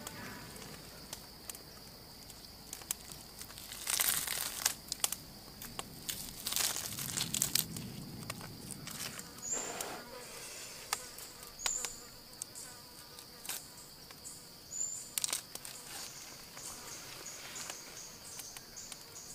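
Insects buzzing steadily at a high pitch, with irregular crackling and tearing noises from roasted meat being pulled apart by hand and pieces dropped into a stone mortar.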